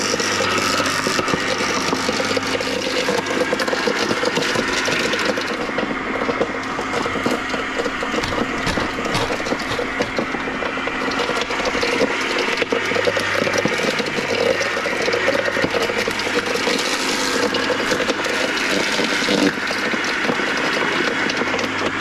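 Electric garden shredder running steadily, with its blades milling fish into berley, crackling and rattling as the pieces are chopped. There is a single thump near the end.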